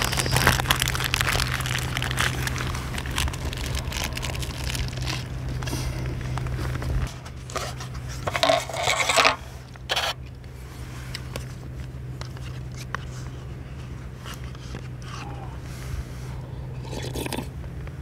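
Plastic sandwich wrapper crinkling and rustling as it is pulled off and handled, with a few scrapes of the paper tray on a metal table. Most of the crinkling comes in the first half, then a few louder knocks, with a steady low hum underneath.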